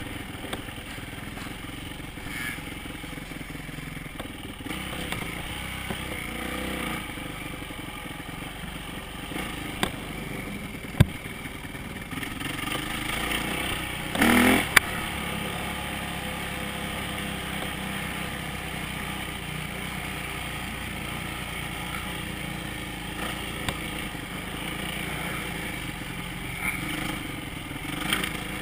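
Dirt bike engine running as the bike is ridden along a trail, heard from on the bike, with a steady rush of noise and sharp knocks as it goes over bumps. There are two sharp knocks about ten seconds in and a brief louder burst about halfway through.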